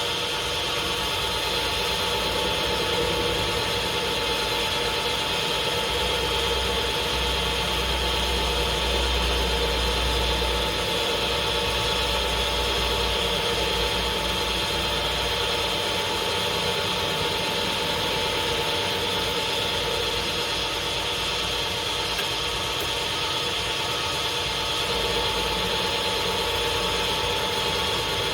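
Lathe running steadily with a constant mechanical hum; a deeper low rumble swells for several seconds about a quarter of the way in.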